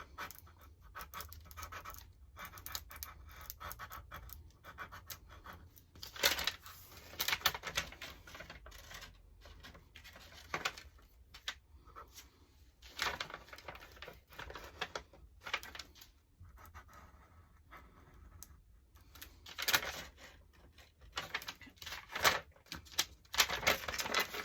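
Irregular scratchy rubbing and rustling strokes of paper and drawing materials being handled on a work surface, in bursts with short pauses between.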